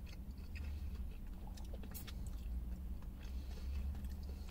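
A person chewing a mouthful of chicken wrap, with many small wet clicks of the mouth, over a steady low rumble.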